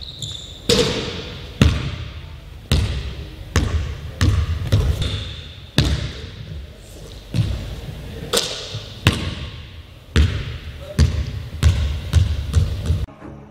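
A basketball bouncing on a hardwood gym floor, echoing in the large hall, with irregular bounces about once a second that come quicker towards the end and stop abruptly.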